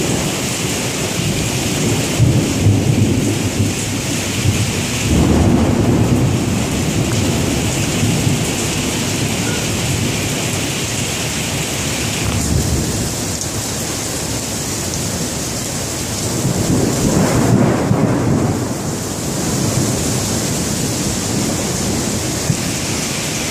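Heavy rain pouring in a derecho thunderstorm's gusting wind, with low rumbles of thunder swelling up three times.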